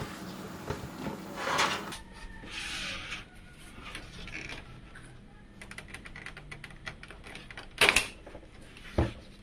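Clicks and knocks of a PC case and its front panel being handled, a quick run of small clicks followed by a louder knock and a dull thud near the end.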